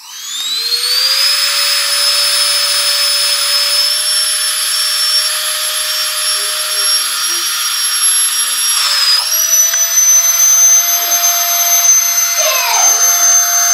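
Vacuum motor sucking the air out of a vacuum storage bag: it starts up with a rising whine, then runs with a steady high whine. About nine seconds in, its pitch dips and then settles slightly higher.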